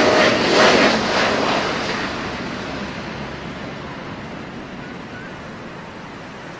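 Aircraft noise, loud at first, then fading away over the first few seconds into a faint, steady rush.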